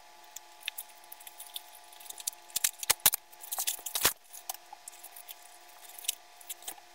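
Scissors snipping open a plastic mailer package, with sharp snips and crinkling of the plastic, the busiest stretch in the middle.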